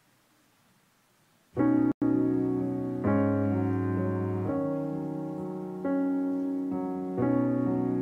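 Near silence, then about a second and a half in, solo piano music starts with slow sustained chords that fade as they ring, a new chord every second or so. There is a brief dropout just after it begins.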